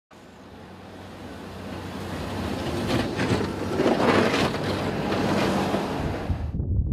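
Motor grader with a snow plow blade driving through deep snow: a diesel engine running under a loud rushing of snow being pushed and thrown. The rush grows louder, is loudest about four seconds in, and its hiss cuts off abruptly near the end.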